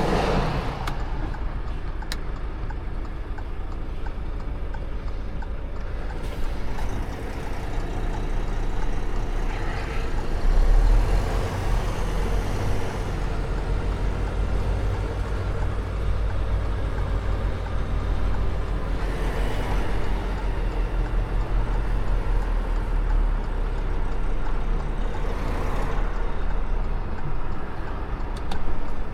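Volvo VNL 860 semi truck's diesel engine running, a steady low rumble that grows heavier from about ten seconds in and eases again after about twenty-three seconds.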